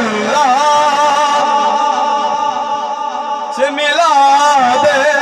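A man's voice chanting a religious verse, amplified through a microphone, in long drawn-out notes with a wavering vibrato. A new phrase starts a little before the end.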